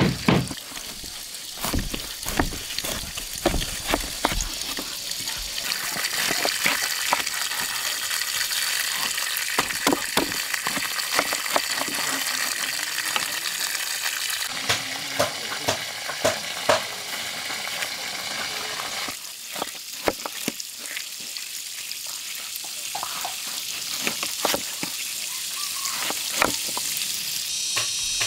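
Food sizzling in a hot pan, with scattered clicks and scrapes of a utensil stirring it.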